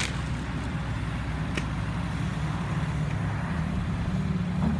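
Heavy diesel engine running steadily with a low drone, with one sharp click about a second and a half in.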